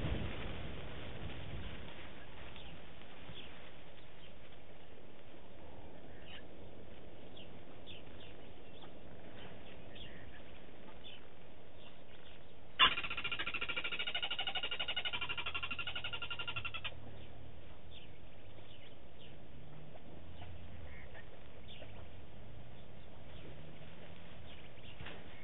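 Scattered short bird chirps over a faint, steady outdoor background. About halfway through, a loud high-pitched sound made of several steady tones starts with a sharp click, holds for about four seconds, then cuts off.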